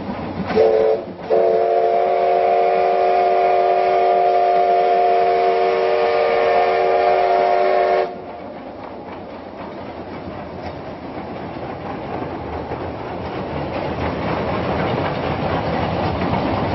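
Steam locomotive's whistle: a short toot about half a second in, then a long chord-like blast of about seven seconds that cuts off sharply. After it, the rumble and clatter of the train running, growing louder.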